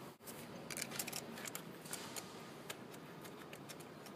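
Scattered light clicks and taps of hands handling things, over a faint steady hiss, with a brief drop-out just after the start.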